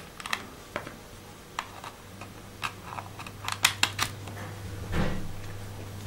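Light, irregular clicks and taps from hands at a laptop, with a quick cluster a little before four seconds and a soft thump about five seconds in. A low steady hum comes in about two seconds in.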